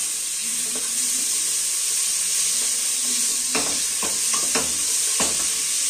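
Chopped sweet peppers and tomato sizzling in hot oil in a stainless steel pot as they are stirred with a wooden spoon. Several sharp knocks of the spoon against the pot come in the second half.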